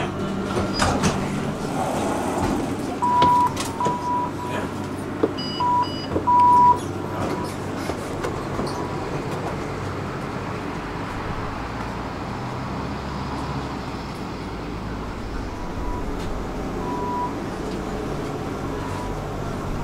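Tram stopping and passengers getting off: a run of short electronic beeps, some held longer, with a few clicks in the first seven seconds, then a steady street-traffic rumble at the tram stop with two more short beeps near the end.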